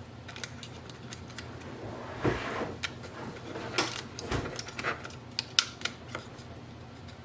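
Irregular small plastic clicks and taps as an Epson EcoTank printer's ink tubes are fitted back into place by hand, with a couple of duller knocks.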